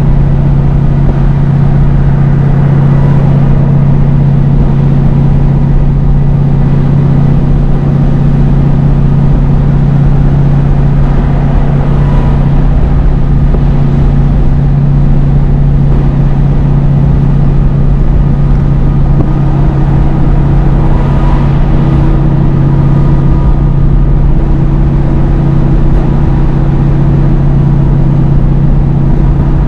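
Scania G500 truck's 13-litre straight-six engine holding a steady, even drone while engine-braking down a steep grade in a fixed gear, holding a 56-tonne load back without the foot brakes.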